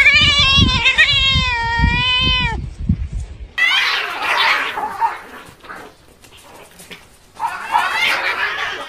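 Cats fighting: a long, wavering yowl for about two and a half seconds, then, after a short break, harsh screeching calls twice.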